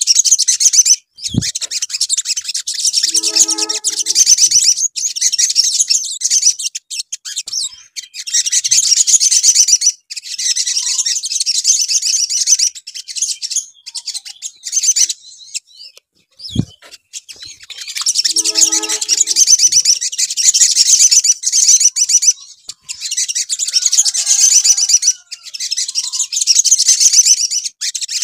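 Olive-backed sunbird song: long runs of very fast, high-pitched trilling chatter with short breaks. It is a sogon lure recording (pancingan). The same passage, with a low thump in it, repeats about fifteen seconds later, as a loop.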